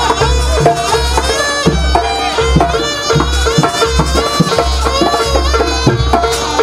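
Live Javanese jaranan ensemble music: drums keep a steady beat under a bending, sliding melody line and a held drone note.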